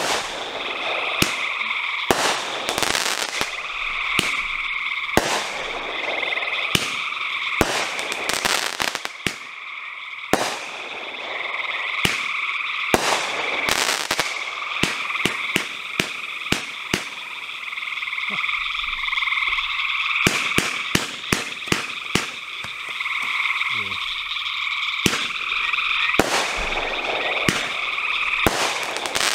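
A 500 g multi-shot fireworks cake firing shot after shot: a long run of sharp launch reports and bursting shells, some trailing into crackle, coming roughly every second or two. Under them runs a steady high chirring animal chorus.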